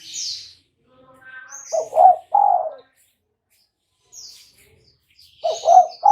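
Spotted dove (tekukur) cooing: a three-note phrase, a quick double coo then a longer drawn-out one, about two seconds in and again near the end. Higher chirps of small birds come in between.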